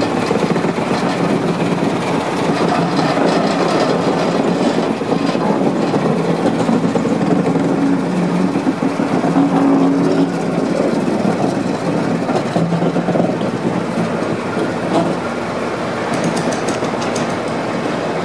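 Diesel engines of a Class 35 'Hymek' and a Class 14 diesel-hydraulic locomotive running as the coupled pair move slowly past, a steady engine drone over rumble. A few sharp clicks from the wheels come near the end.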